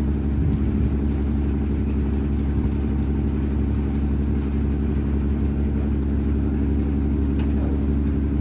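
Ro-ro ferry's engines running steadily on board, a constant low drone with a steady hum.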